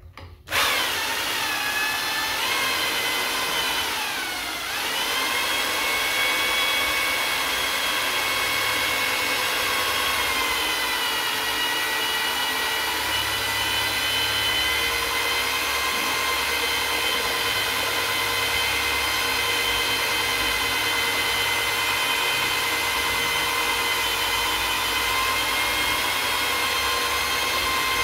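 Corded electric drill with a paddle mixer stirring thinned emulsion paint in a bucket, its motor whining steadily. It starts about half a second in, and its pitch sags twice under load in the first five seconds before settling.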